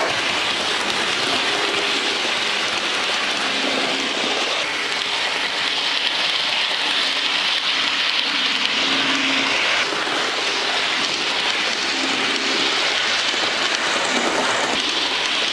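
DCC-fitted Hornby Eurostar model train running round an OO-gauge layout: a steady hiss of its wheels rolling on the track, with short low hums coming and going several times.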